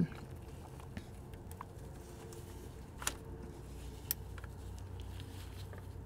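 A few faint, scattered clicks and ticks over a low steady hum: small metal-tool or handling noises, with no steady ratchet rhythm.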